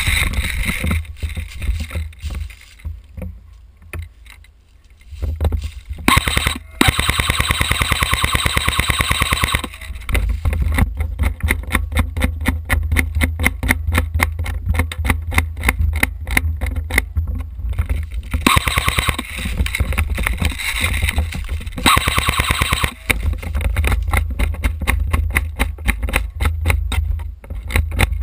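Airsoft gun firing long strings of rapid, evenly spaced shots. Two stretches of louder rushing noise come in between the strings of shots, over a steady low rumble.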